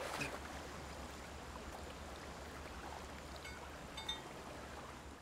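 Faint water ambience over a low steady rumble, with a couple of soft clicks near the end.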